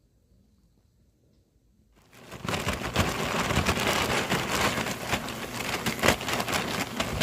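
Almost silent at first; about two seconds in, a large clear plastic bag starts crinkling and rustling loudly as hands work it, full of small crackles.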